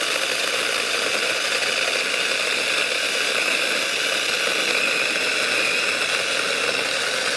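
Battery-powered 6-inch mini chainsaw (ImoumLive, 21 V) running at full speed and cutting through a log about 2.5 inches thick: a steady high electric whine with chain noise.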